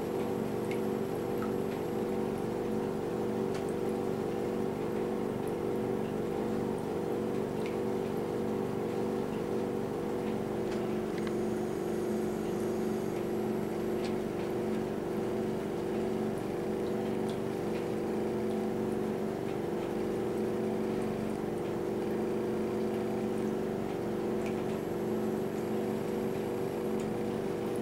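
Homemade tornado vortex machine running: a steady electric-motor hum, with several droning tones, from its fans. The hum holds unchanged throughout.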